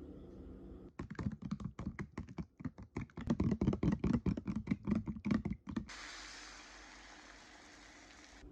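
Typing on a computer keyboard: a run of quick, irregular key clicks, several a second, that stops about six seconds in and gives way to a faint steady hiss.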